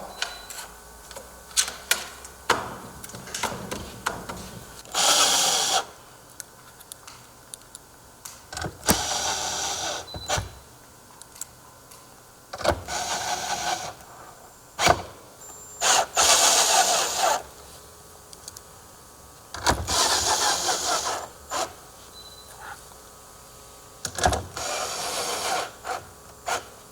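Cordless drill-driver running in six short bursts of about a second each, driving the screws that fasten riser bars back onto a door threshold, with clicks and knocks of handling between the bursts.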